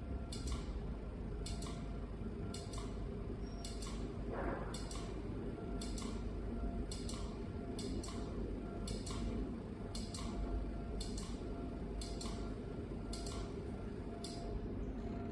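Laser screen-repair machine firing a steady series of shots, each a short sharp click, about once a second and some in close pairs, over the low hum of the machine.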